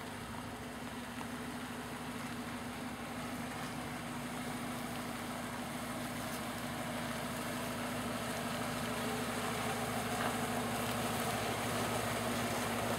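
Suzuki SJ-series 4x4 engine running at low revs as the vehicle crawls over a deeply rutted dirt track, growing louder as it comes closer.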